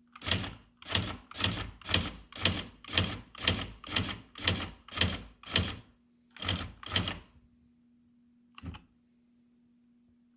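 IBM Wheelwriter 15 Series II electronic typewriter working through a run of about a dozen even mechanical strokes, about two a second, then two more and a single click near the end. A faint steady hum runs underneath.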